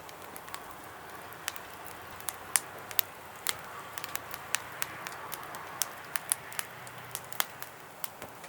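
Small wood fire crackling, with irregular sharp pops over a soft steady hiss.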